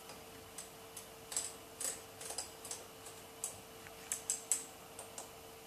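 Soft, irregular clicks from a Siemens built-in oven's control knob as it is turned to set the oven, over a faint steady hum.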